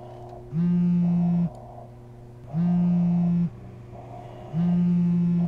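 A mobile phone vibrating on a tabletop, buzzing three times in about one-second pulses with one-second gaps, over a low steady hum.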